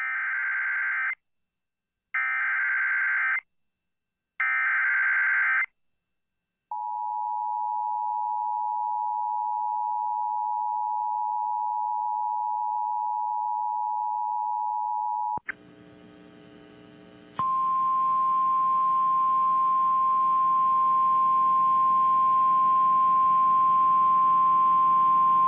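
Emergency Alert System alert tones: three one-second bursts of warbling SAME header data, then the two-tone EAS attention signal held for about eight seconds. After a couple of seconds of radio hiss, the NOAA Weather Radio single-tone warning alarm comes in over static and holds steady for about nine seconds.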